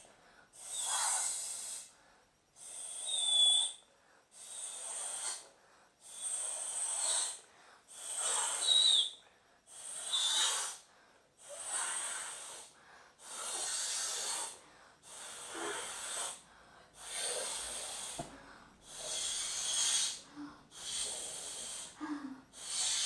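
Repeated puffs of breath blown through a straw into a ball of Skifidol gummy slime to inflate a bubble. There are about a dozen airy, hissing blows, each about a second long, coming roughly every one and a half seconds, with short pauses for breath between them.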